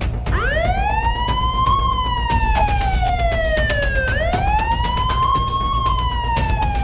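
Ambulance siren wailing in two slow cycles, each a quick rise in pitch followed by a long, gradual fall, over a steady low rumble.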